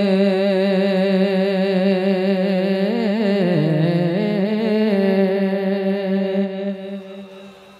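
A man's solo voice singing a naat into a microphone: one long held note with a wavering, ornamented run about three seconds in, then the note fades away near the end.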